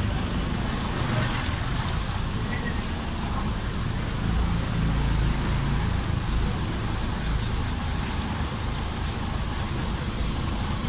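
Street traffic running by: motorbikes and other vehicles on the road, a steady low rumble that swells a little about four seconds in.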